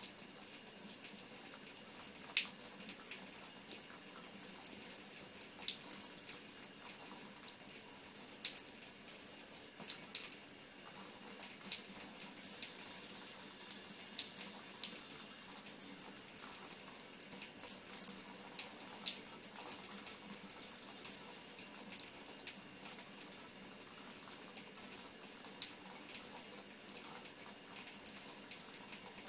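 Thin stream of water running from a bathtub spout into the tub, a steady trickling hiss, with many quick, irregular wet ticks from a cat lapping at the stream.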